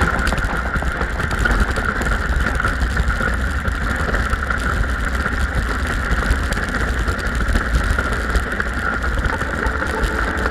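Toboggan sliding downhill on packed snow: a steady scraping hiss of the runners over the snow with a low rumble underneath, unbroken throughout.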